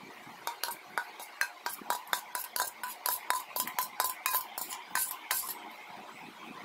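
Stainless steel spoon clinking and scraping against a steel bowl while scooping thick mango pulp, a quick run of ringing metal clicks, about five a second, that stops about a second before the end.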